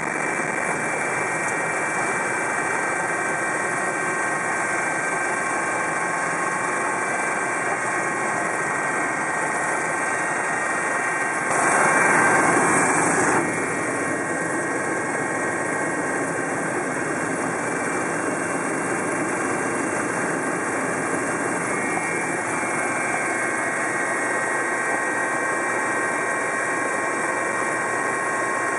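Helicopter cabin noise: the steady turbine whine and rotor drone of a pilot-transfer helicopter heard from inside. About twelve seconds in, a louder rush of noise lasts about two seconds.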